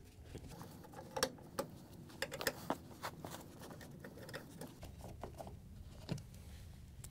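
Nut driver taking the screws out of a refrigerator's rear access cover: faint, irregular clicks and small scrapes of metal on metal.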